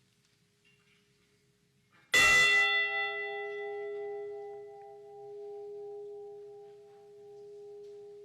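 A large bell struck once about two seconds in, ringing on with a slowly fading, wavering hum: a memorial toll for one lost crewman of the Edmund Fitzgerald.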